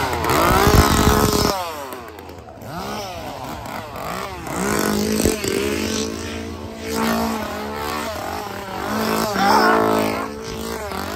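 Gas chainsaws revving up and down again and again, their pitch rising and falling with each blip of the throttle. The loudest revving comes in the first second and a half, then they rev again over a steadier running note from about four seconds in.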